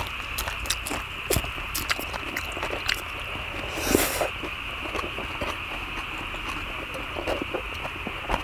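Close-up eating sounds: chewing and mouth noises over a mouthful of kimchi stir-fried pork and a lettuce wrap, with scattered sharp clicks of chopsticks on the cast-iron cauldron lid. One louder burst comes about four seconds in, and a steady high hiss runs underneath.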